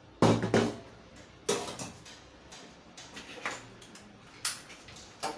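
Stainless steel lid clattering onto a small saucepan, with a short metallic ring, followed by a few sharp knocks and clicks as the gas cooker's burner is lit with a lighter.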